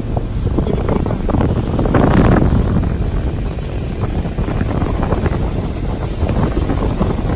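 Wind buffeting the microphone and water rushing and splashing past the hull of a motorboat under way, a loud continuous rough noise that swells about two seconds in.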